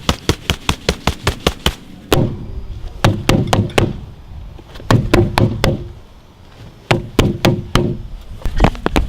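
Quick knocking on a hard surface in several bursts. It opens with a fast, even run of about six knocks a second, continues with shorter, heavier clusters separated by pauses, and picks up speed again near the end.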